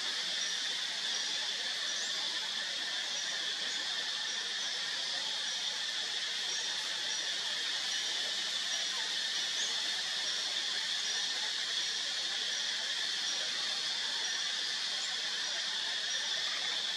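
Steady high-pitched insect chorus with a short high note repeating at a steady pace.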